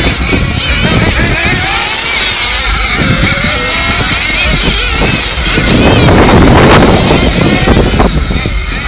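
Radio-controlled race cars' motors whining, the pitch rising and falling as they speed up and brake, over loud rumbling noise that swells about six seconds in.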